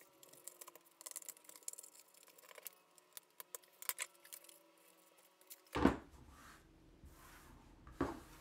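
Small scissors snipping through a cardboard template, a run of light crisp clicks, followed by two louder thumps on the tabletop about six and eight seconds in.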